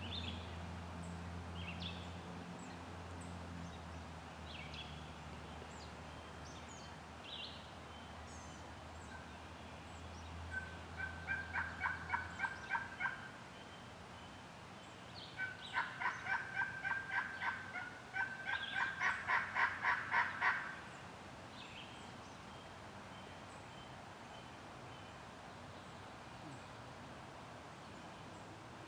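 Wild turkey yelping in three runs of rapid notes, about five a second; the second and third runs come close together and are the loudest. Small songbirds chirp throughout, and a low steady hum stops about twelve seconds in.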